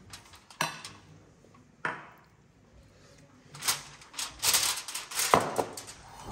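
Aluminium foil crinkling and rustling under hands handling a stuffed fish. There are a couple of sharp clicks in the first two seconds, then a dense run of crackling in the second half.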